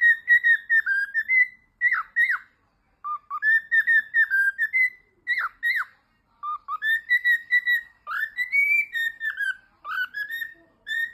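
Cockatiel whistling its song: phrases of quick, clear whistled notes that rise and fall, broken by short pauses.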